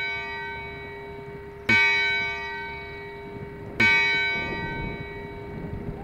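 A large clock-tower bell ringing: a stroke just before is still sounding, then it is struck twice more about two seconds apart, each stroke ringing on with many overtones and slowly fading.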